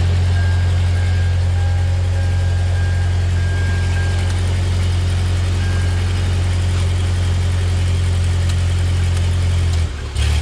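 Vehicle engine idling steadily after a jump start, then cutting out about ten seconds in. It dies because the fuel was not turned on.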